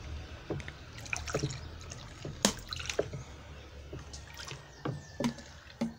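Water in a large plastic basin sloshing and dripping as a wooden stick stirs it, with a thin stream of detergent poured in at the start; a scatter of small irregular splashes and drips.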